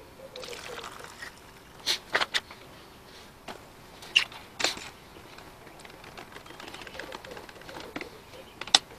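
A brew poured from a vacuum flask into a cup, a soft trickling hiss lasting about a second near the start. It is followed by several sharp clicks and knocks as cups and lids are handled, including a quick run of three clicks about two seconds in.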